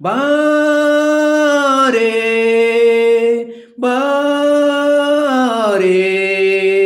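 A man singing unaccompanied in long held notes. The pitch steps down about two seconds in, he takes a short breath near the middle, and the line slides down to a lower held note near the end.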